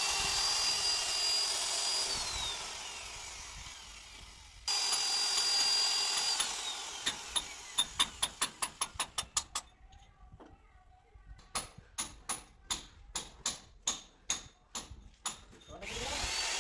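Small electric power tool motor running and winding down, started again a little before 5 s and winding down once more with a string of clicks that slow as it stops. A run of sharp clicks about two to three a second follows, and the motor starts up again near the end.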